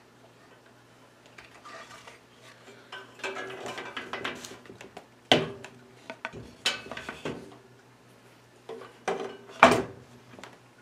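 Handling noise from a wooden board fitted with brass lamp sockets being worked on at a workbench: scattered metallic clinks, rustling and knocks. The two loudest knocks come about five and ten seconds in.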